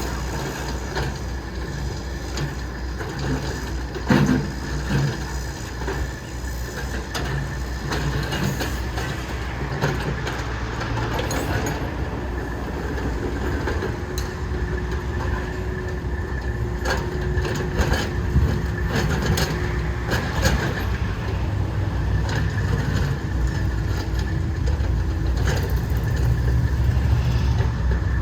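Diesel engines of a Takeuchi TL12 skid steer and a CAT 308E2 excavator running hard, a steady low rumble with scattered knocks and clanks.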